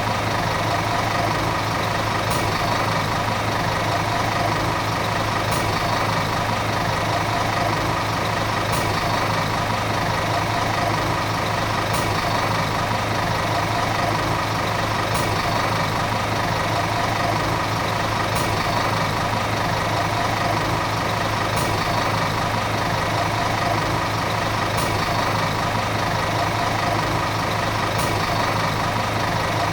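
Volvo city bus diesel engine running steadily at constant revs, with no revving or change in pitch. A faint tick recurs about every three seconds.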